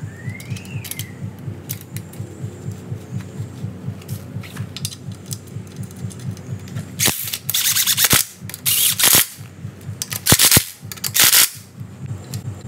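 Cordless impact driver running bolts into a go-kart's rear bearing cassette bracket: four short rattling bursts in the second half, the first about a second long. Before them, light clicks of bolts and washers being handled.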